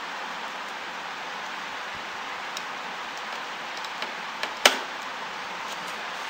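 A screwdriver worked against the plastic casing of an Epson ink-tank printer's scanner unit: a few small clicks and then one sharp plastic click about four and a half seconds in, over a steady hiss.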